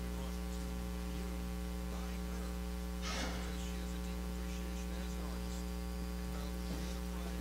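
Steady electrical mains hum in the recording, with a faint brief rustle about three seconds in.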